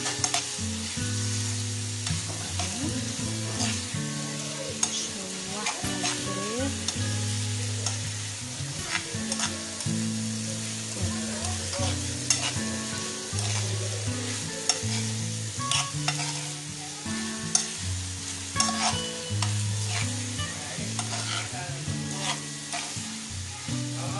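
Chicken breast pieces and onions sizzling in a non-stick frying pan while a metal spoon stirs them, scraping and clicking against the pan over and over. Low sustained tones that shift in pitch every second or two run underneath.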